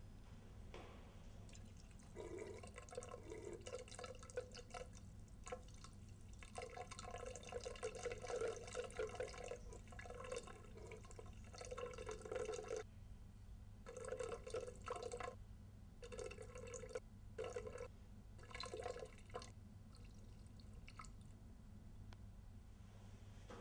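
A man urinating into a porcelain wall urinal, the stream splashing into the bowl. It starts about two seconds in, runs steadily for a while, then stops and restarts in several shorter spurts before petering out near the end.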